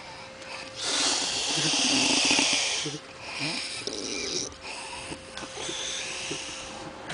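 A woman snoring heavily in her sleep: one long, loud, harsh snore about a second in, then two quieter snoring breaths.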